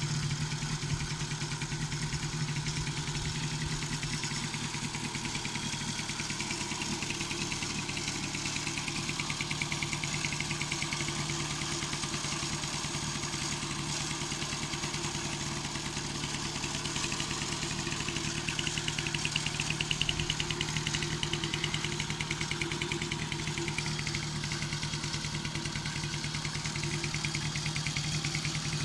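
1971 Garelli Mofa 25 moped's 47 cc two-stroke single-cylinder engine idling steadily with a fast, even beat.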